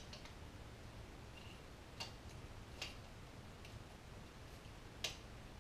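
Telescopic camera pole sections being pulled out and locked, giving a few sharp isolated clicks spaced a second or more apart over faint room tone.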